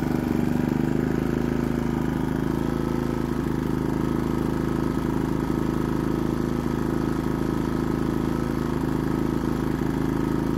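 Pulsar GX400BN dual-fuel inverter generator running on propane with no load, its engine settling into a steady idle about a second in. It idles smoothly, its valves freshly adjusted and without any rattle from its wheels.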